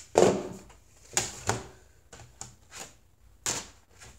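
Flat plastic Lego road baseplates being handled and set down on a tabletop: a series of irregular clacks and slaps, the loudest just after the start.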